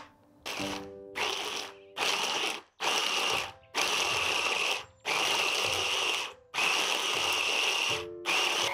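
Electric mini food chopper pulsed in about eight short runs that grow longer, its blades chopping cashews, raisins and prunes. Background music plays under it.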